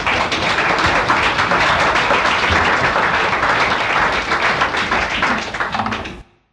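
A live audience applauding: many hands clapping in a dense patter, cut off abruptly about six seconds in.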